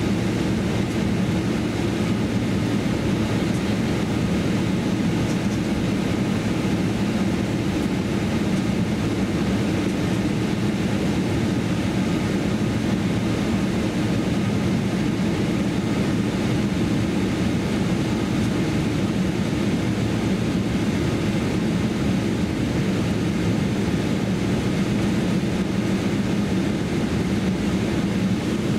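Steady cabin rumble inside a Boeing 777-300ER taxiing, with its GE90 engines at low taxi power and the airframe rolling along the taxiway.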